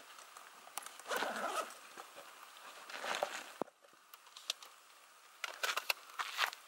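Irregular rustling and scuffing handling noises, with a single sharp click about three and a half seconds in.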